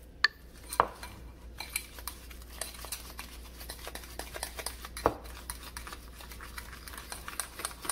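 A fork whipping instant coffee, sugar and cold water by hand in a bowl, clicking fast and continuously against the bowl, with now and then a louder knock. The mixture is being beaten into a thick, meringue-like dalgona coffee cream.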